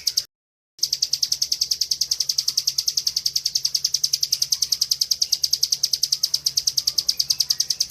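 Bar-winged prinia (ciblek) giving its rapid 'ngebren' call: an even run of sharp, high notes, about nine a second. It breaks off for about half a second just after the start.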